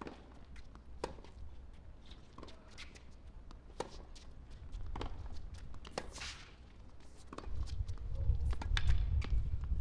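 Tennis ball struck back and forth in a rally on a hard court: a string of sharp racket pops and ball bounces about a second apart, with shoe scuffs. A low rumble comes up near the end.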